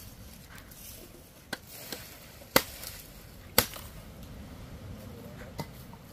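Sticks of firewood being chopped with a blade: five sharp chops, unevenly spaced, the loudest two a little past the middle.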